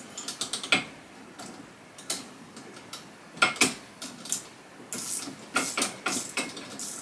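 Small 8 mm wrench clicking and clinking on a grease fitting as it is worked loose from the support rod: a string of sharp metal ticks and clinks, thickest around the middle and near the end.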